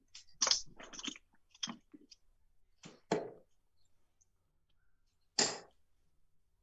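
Steel-tip darts thudding one at a time into a Winmau Blade 5 sisal bristle dartboard: a few short, sharp impacts with gaps between them, the loudest about three and five and a half seconds in.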